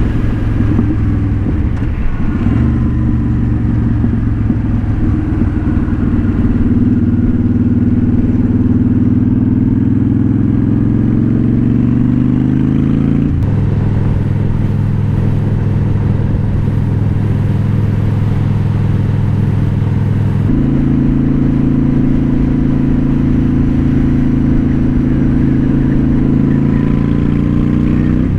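Honda Shadow Spirit 750's V-twin engine under way, its exhaust note climbing steadily in pitch as the bike accelerates, then dropping sharply at a gear change about halfway through and stepping up again later, with wind on the microphone.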